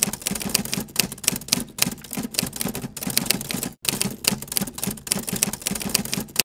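Typewriter sound effect: keys clacking quickly, about six or seven strokes a second, with a brief pause a little past halfway, stopping abruptly at the end.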